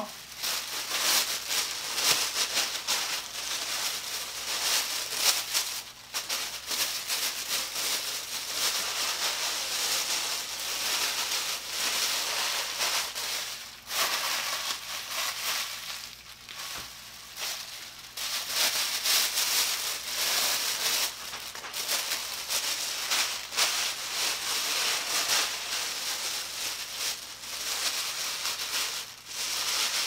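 Thin HDPE plastic shopping bags crinkling and rustling as they are handled, folded and pressed flat by hand into a metal baking tray, with brief lulls now and then.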